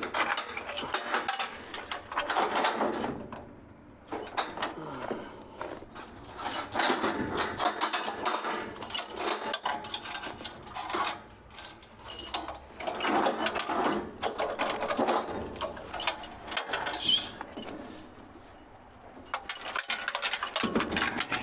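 A ratchet being worked in runs of rapid clicking, broken by short pauses, as something is being loosened and taken off.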